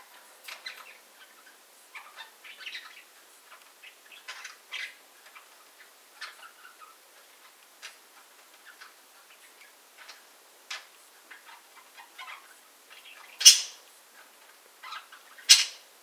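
Two budgerigars chattering in short, scattered chirps and clicks, with two much louder, sharp notes near the end, about two seconds apart.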